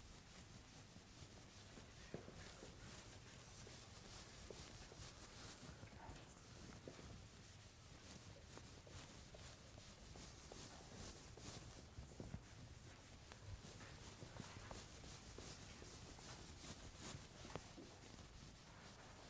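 Faint rubbing of a sponge wiped stroke after stroke across a chalkboard.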